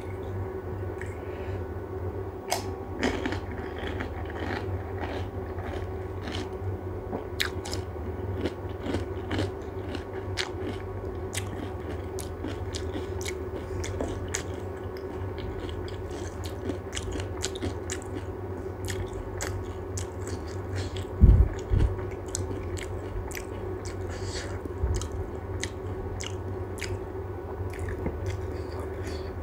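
Panipuri being bitten and chewed close to the microphone: crisp puri shells cracking in many quick, irregular crunches with wet chewing, over a steady low hum. Two dull thumps about two-thirds of the way through are the loudest sounds.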